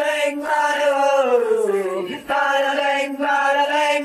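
Isolated male rock vocals with no instruments: two long held sung notes, the first gliding down in pitch and breaking off about two seconds in, the second held steady.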